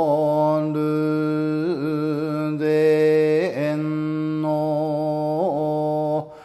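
A solo male voice chanting Shingon Buddhist shōmyō (Buzan-school hyōbyaku) in long notes held on one steady low pitch. Every couple of seconds the voice breaks into a short wavering ornament (yuri), and it stops shortly before the end.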